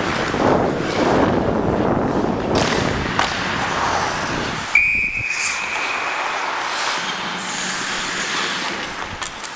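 Skating noise: wind rumbling on the microphone of a moving skater's camera, with skate blades on ice. About halfway through, a referee's whistle blows once for about a second to stop play, and the rumbling then drops.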